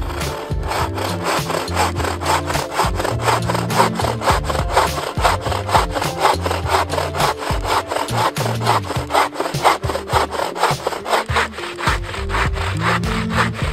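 Wooden-framed bow saw cutting through a fallen log by hand, in fast, even back-and-forth strokes that rasp steadily through the wood.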